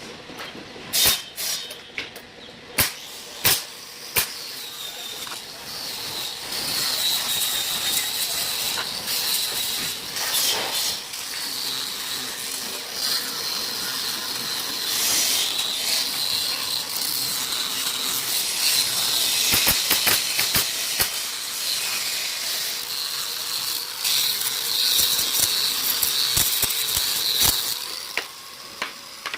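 Woodworking machine at work: a few sharp knocks in the first few seconds, then a steady hissing cut with a high whine that runs until shortly before the end.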